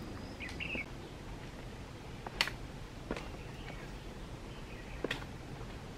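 Footsteps on a concrete trail: a few sharp, widely spaced steps over quiet woodland background, with a short faint bird chirp about half a second in.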